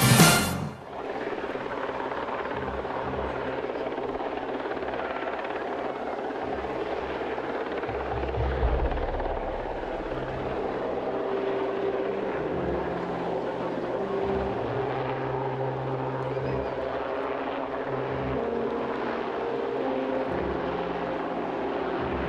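Propeller aircraft engine running in flight, a steady drone whose pitch shifts several times as the power changes. A music track cuts off at the very start.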